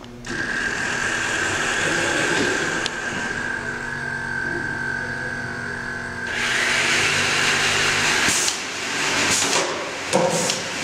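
FIRST Robotics Competition frisbee-shooting robot running its autonomous routine: electric motors start abruptly with a steady high whine. About six seconds in this gives way to a louder rushing, whirring noise, followed by a few sharp clicks near the end.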